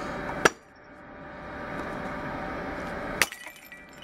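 A claw hammer strikes a small ceramic piggy bank on concrete twice, two sharp cracks about three seconds apart, and the piggy bank shatters, its shards skittering briefly on the pavement after the second blow.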